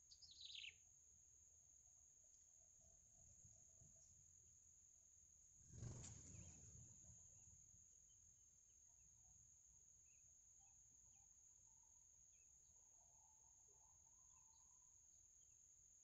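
Quiet outdoor sound: a steady high insect drone runs throughout, with a quick falling run of high bird calls right at the start. About six seconds in comes a soft low thump and rustle, the loudest moment, and faint high chirps from the small bird and its nestlings are scattered through the second half.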